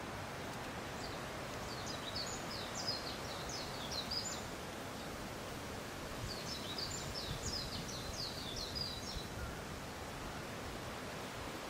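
Wind rustling through fresh leaves and branches in a steady hiss, while a small songbird sings two quick, high twittering phrases, the first about a second in and the second around six seconds in.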